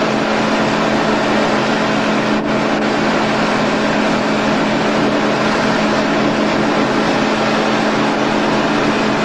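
A boat's engine running steadily, heard on board as a constant drone with a steady low hum under a broad rushing noise.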